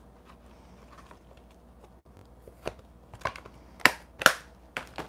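Clear plastic stamp-set case and stamps being handled: a handful of sharp plastic clicks and crinkles in the second half, the two loudest close together about four seconds in.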